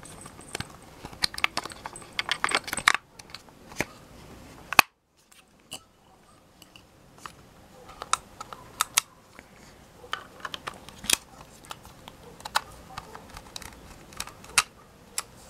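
Small hard-plastic toy parts and batteries being handled: scattered sharp clicks, taps and light rattles, as the batteries in a Playmobil bed's battery-powered nightstand lamps are swapped for fresh ones.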